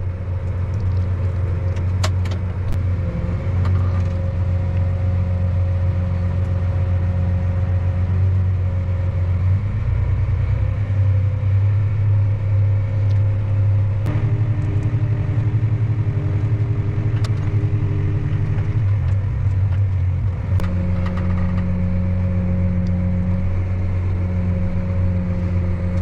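Diesel engine of heavy harvest machinery running steadily with a deep hum, its tone shifting a few times along the way.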